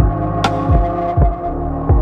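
Background electronic music with a steady beat: a deep kick drum about twice a second under sustained synth chords, with a sharp high hit shortly after the start.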